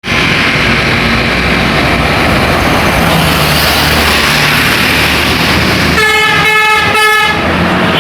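A large tour bus driving past, engine and road noise loud. About six seconds in it briefly sounds its multi-tone 'telolet' horn, in two short blasts.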